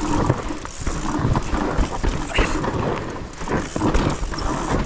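Mountain bike clattering down a steep, rough trail: tyres rolling over dirt and rocks, with the frame and chain rattling in uneven knocks over a steady rumble.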